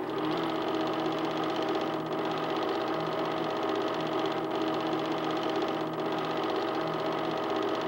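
Home-movie film projector running: a steady, rapid mechanical clatter with a constant hum.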